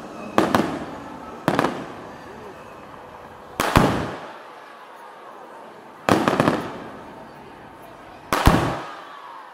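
Aerial fireworks bursting overhead: five loud bangs spread over about nine seconds, each trailing off in an echo, with a crowd talking underneath.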